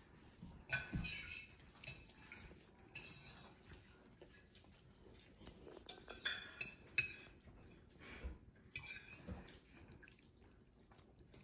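Faint, scattered clinks and taps of forks against plates as people eat.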